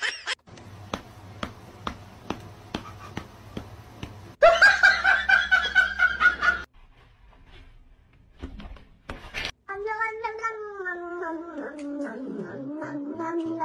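A cat yowling in the second half: one long, wavering cry that slides down in pitch. Before it come a run of regular clicks, about three a second, and then a loud, high-pitched cry lasting about two seconds.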